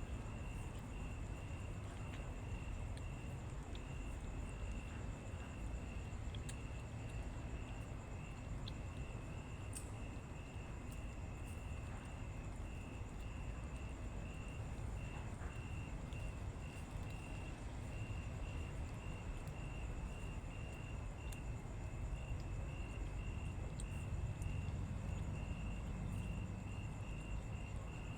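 Insects trilling steadily, a high chirring that pulses a few times a second with a fainter, higher whine above it, over a low background rumble.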